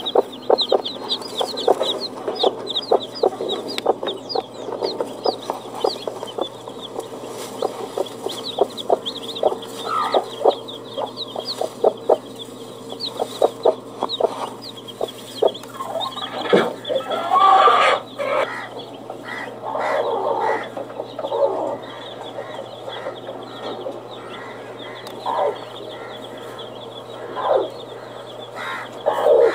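Chickens clucking, with a quick run of short high peeps over the first few seconds and scattered louder calls later. A steady low hum lies underneath.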